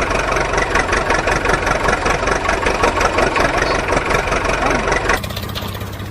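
Engine idling steadily with a rapid ticking, knocking rhythm, in the manner of a tractor diesel. About five seconds in, the sound changes abruptly to a quieter, smoother run.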